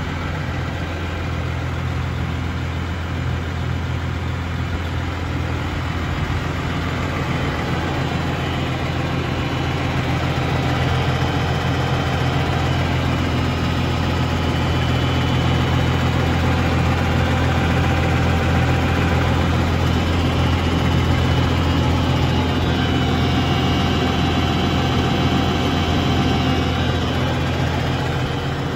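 New Holland T7.270 tractor's six-cylinder diesel engine idling steadily.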